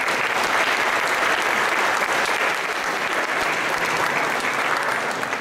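An audience applauding steadily, many people clapping at once, fading slightly near the end.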